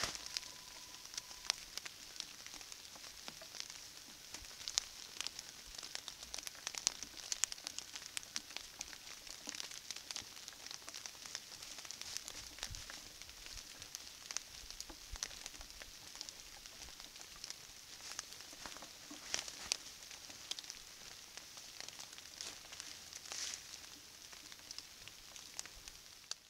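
Trail camera recording of a woodland trail: a steady high hiss with many irregular crackles and ticks, the kind made by rain or hooves on dry fallen leaves. A brief steady beep sounds at the very start.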